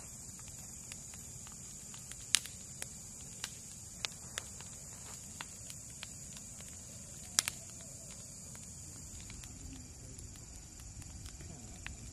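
Wood bonfire crackling, with scattered sharp pops from the burning wood, the loudest about two and a half seconds in and again about seven and a half seconds in, over a steady high chirring of night insects.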